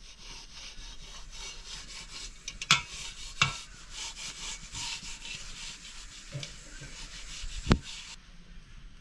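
Rough scraping or rubbing, repeated rapidly, with two sharp knocks about three seconds in and a louder knock near the end.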